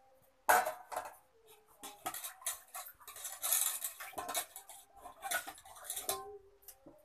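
Stainless steel utensils clattering: a metal spoon scraping and clinking inside a steel pot and against steel plates, a quick run of knocks and scrapes that starts with a loud clank about half a second in.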